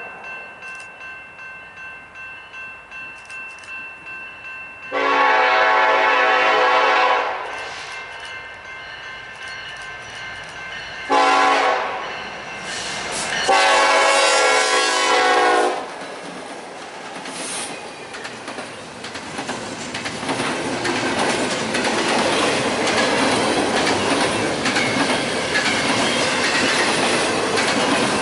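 A train horn sounds a long blast, a short blast and another long blast, the close of the long-long-short-long signal for a grade crossing. The train then passes, its wheels clattering over the rail joints, growing louder.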